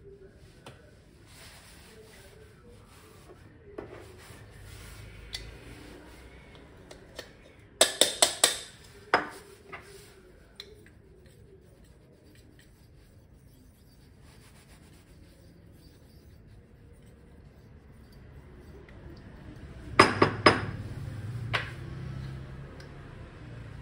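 Espresso prep tools (dosing cup, portafilter and WDT tool) being handled on a countertop, with faint rubbing and two bursts of sharp clinks and taps: one about eight seconds in and one about twenty seconds in.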